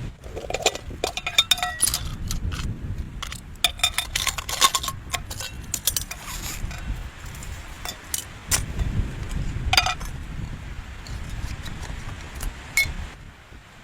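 Repeated light metallic clinks and jingles, in clusters near the start, around four to five seconds in and near ten seconds in. Under them is a low, gusting rumble of wind on the microphone.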